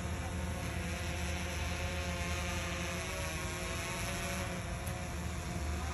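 Quadcopter drone's propellers whining steadily in flight, several pitches together that drift up and down slightly, over a low rumble.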